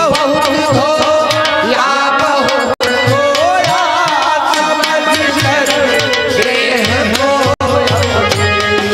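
Hindi devotional katha song: a man singing with ornamented, wavering pitch over tabla accompaniment. The sound cuts out for an instant twice.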